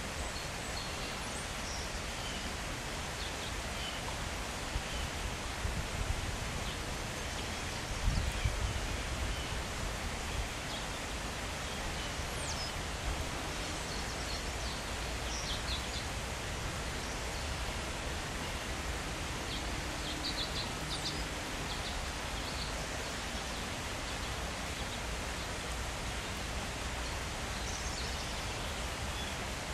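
Outdoor ambience: a steady hiss of breeze and rustling leaves, with a few faint, short high chirps scattered through it and a brief low rumble about eight seconds in.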